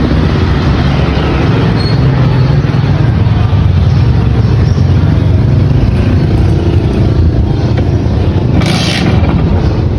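Simson S51's 50 cc two-stroke single-cylinder engine running, fitted with a VAPE electronic ignition. A short burst of hiss breaks in about nine seconds in.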